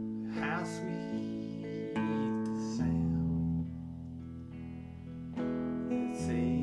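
Electric guitar, a Fender Telecaster played through a Fender Princeton amp: slow chords strummed and let ring, changing every second or so.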